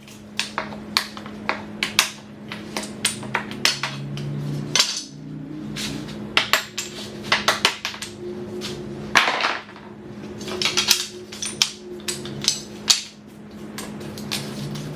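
Hard objects being handled and set down on a workbench: irregular knocks, clicks and clatters, several a second at times, over a steady low hum.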